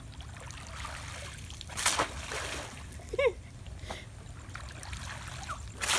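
Pool water splashing as it is slapped hard, twice: a sharp splash about two seconds in and another near the end. A brief high-pitched call cuts in about three seconds in.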